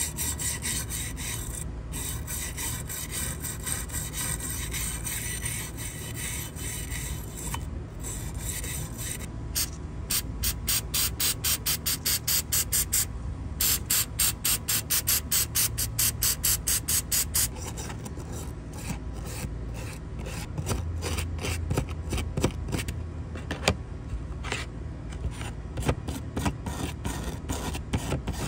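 Small wire brush scrubbing flaking paint and rust off a diecast metal model car body and door panels, with a dry, rasping back-and-forth scratch. For a stretch in the middle the strokes come fast and even, and they turn more uneven toward the end.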